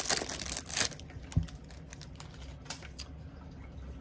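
Clear plastic wrap crinkling as it is pulled off a stack of trading cards, stopping after about a second. Then a few light clicks and taps of the cards being handled, with a soft thump a little later.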